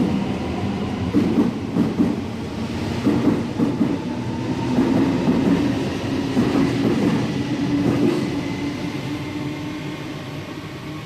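Passenger train running past with rumbling wheel and rail noise and a steady motor hum, fading as it moves away over the last few seconds.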